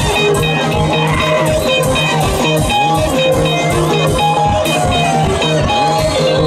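Live band music: electric guitars picking short repeating riffs over bass guitar and a drum kit keeping a steady beat.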